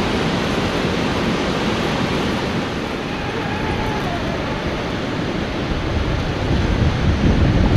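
Wind rushing steadily across the microphone, with gusts buffeting it more heavily near the end.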